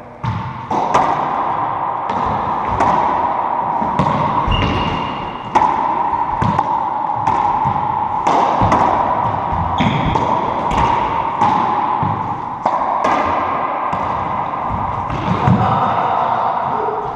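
Racquetball rally: the rubber ball struck by racquets and smacking off the court's walls and floor in a quick run of sharp, echoing cracks, one roughly every two-thirds of a second.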